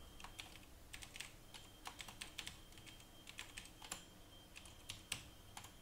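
Computer keyboard typing: faint, irregularly spaced keystrokes as words are typed in.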